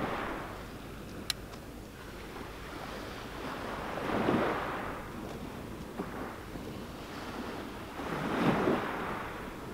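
Small waves breaking and washing up a shingle beach, two swells of surf about four seconds apart on a calm sea. A single sharp click about a second in.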